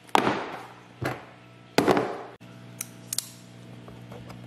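Folding knife blade slicing through the tape on a small cardboard box: three sharp scraping cuts in under two seconds, each trailing off, followed by a few light clicks.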